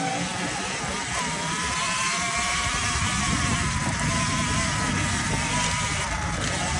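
Sur-Ron electric dirt bike under way: a steady motor whine that wavers with the throttle, coming in about a second in, over wind and tyre rumble.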